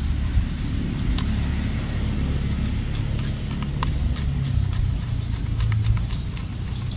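Light clicks of a small screwdriver turning a screw into the plastic battery cover of a toy train engine, over a steady low rumble.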